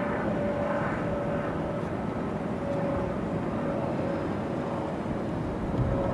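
Steady urban traffic-like rumble with a faint, wavering steady tone of an outdoor warning siren still sounding.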